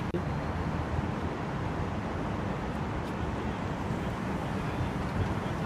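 Steady outdoor city background noise with a low rumble.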